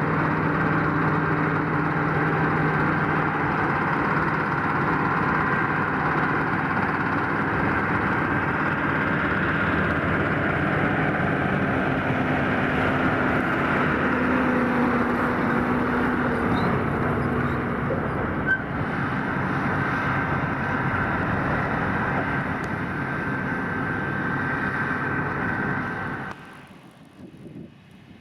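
Large harvest machinery running steadily: a continuous diesel engine drone with held tones from working gear, which drops away abruptly near the end.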